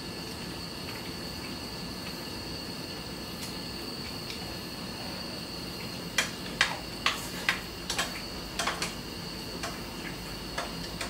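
Metal spoons and chopsticks clinking and scraping against ceramic rice bowls, a run of sharp clicks in the second half, over a steady high-pitched trill.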